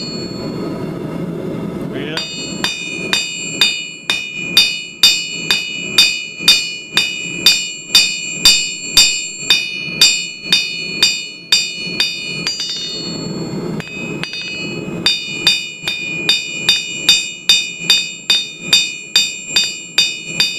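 Hand hammer striking red-hot quarter-inch square steel stock on an anvil, about two blows a second, each blow with a bright metallic ring from the anvil. The smith is flattening the end of the bar into the spade of a hook. A short pause of a couple of seconds past the middle breaks the run of blows.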